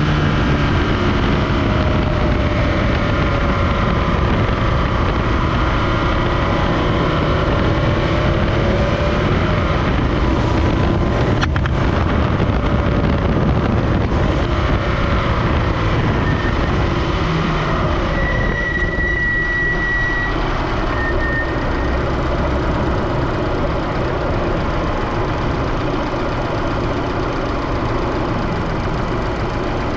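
Supercharged Scion FR-S's 2.0-litre flat-four engine running, its pitch slowly rising and falling as the revs change. It carries the owner's unexplained noise, which comes with load. There is a single sharp click about eleven seconds in.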